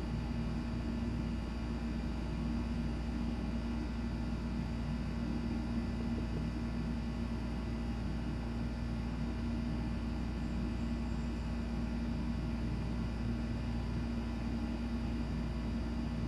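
Steady low mechanical hum with a constant drone and a deep rumble underneath, unchanging throughout.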